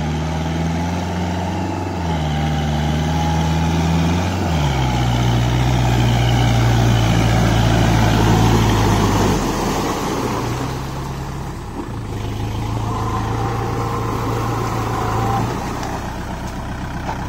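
Kubota 4501 tractor's four-cylinder diesel engine running hard, its pitch stepping up twice in the first five seconds as the tractor speeds up. The engine drops back about ten seconds in, then runs steadily again.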